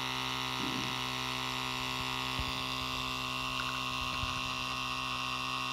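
KaCio Mini 0.5 cc two-cylinder steam engine running at a steady, consistent speed on steam from a small brass boiler, a continuous even hum.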